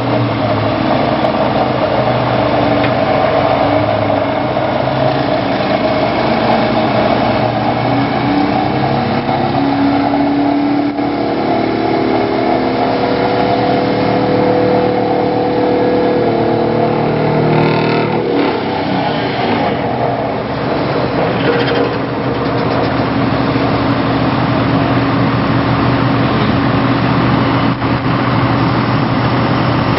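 Excavator-mounted vibratory sheet-pile hammer working, with the excavator's engine and hydraulics running. The sound is loud and continuous; its pitched tones rise through the middle and drop away about eighteen seconds in.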